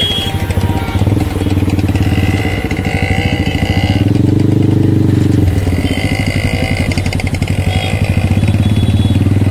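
Busy road traffic, with a small engine running steadily close by and other vehicles passing.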